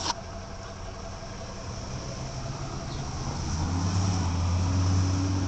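A motor vehicle's engine running nearby, a low steady hum that grows louder through the second half. A sharp click at the very start.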